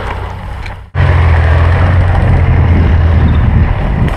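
A vehicle engine's loud, steady low rumble, starting abruptly about a second in after a brief drop-out; a fainter low hum comes before it.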